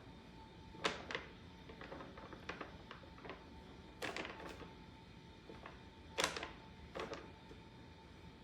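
Scattered sharp knocks and clicks, a handful at irregular intervals with the loudest near the start, about four seconds in and about six seconds in, over a faint steady hum.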